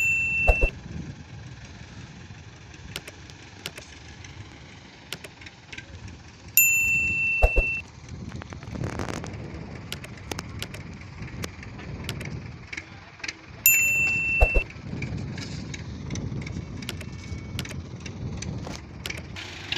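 Sound effects of an on-screen like-subscribe-bell animation, repeating three times about seven seconds apart: each a bright held tone of about a second, ending in a sharp click. A steady low rumble runs underneath.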